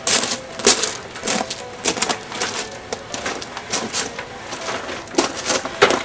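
Plastic garden hose reel turning and clicking as an extension cord is pulled off it, with footsteps crunching on gravel. An irregular run of sharp clicks and crunches, a few louder ones about a second in and near the end.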